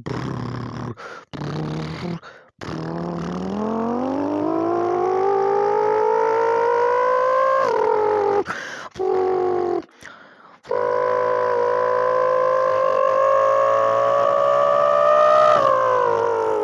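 A person imitating a Lexus LFA's V10 engine with their mouth: a revving note that climbs steadily in pitch for several seconds, breaks off, then a long held high note that rises slightly and drops away near the end, with short breaks between the revs.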